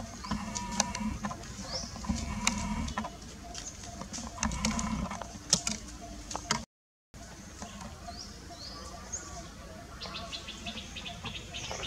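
Scattered crackles and clicks of dry leaves and gravel under walking long-tailed macaques, with a few short, high, rising chirps from small birds. The sound cuts out completely for a moment just past halfway.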